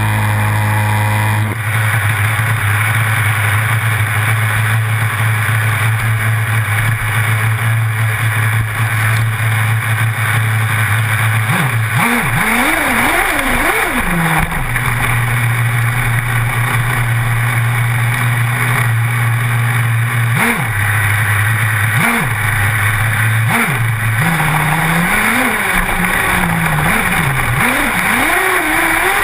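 Small two-stroke engine of a radio-controlled off-road car, heard from a camera mounted on the car. It runs steadily with bursts of throttle, its pitch rising and falling quickly a little before halfway and again through the last few seconds.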